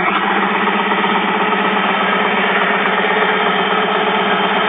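Homemade air compressor built around a 1949 cargo-container air-conditioning pump, running steadily.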